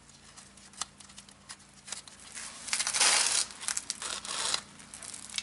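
Front brake caliper being shifted by hand over the pads on its freshly greased slide pins: light metallic clicks, then a short scraping rattle about three seconds in, followed by a few more clicks. The caliper moves freely.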